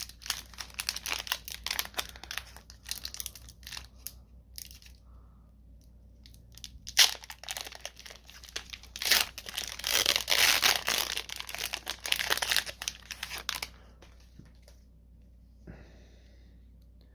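Foil wrapper of a Magic: The Gathering booster pack being torn open and crinkled by hand, in rustling bursts over the first few seconds and loudest from about nine to thirteen seconds in, then it goes quiet.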